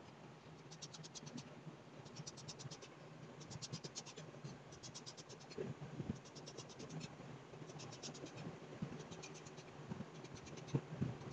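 Kitchen knife drawing through rolled-out dough and scraping along the stone countertop. Faint scratchy strokes, each a quick run of ticks, come roughly once a second as the dough is cut into strips.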